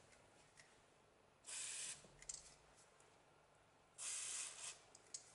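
Aerosol spray can fired through a straw nozzle onto the rusted screws of an old wooden axe handle, in two short hissing bursts of about half a second each, about a second and a half in and again near four seconds in. A few faint clicks follow the bursts.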